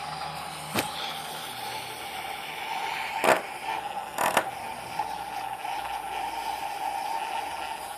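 Battery-powered handheld milk frother running steadily with a constant motor whine, its whisk spinning in instant coffee and water to whip it into foam. Three sharp clicks, about a second, three seconds and four seconds in, as the spinning wand knocks against the glass.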